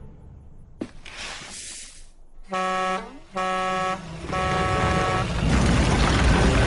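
Two held horn honks, each about half a second long, followed by a loud, growing rumble.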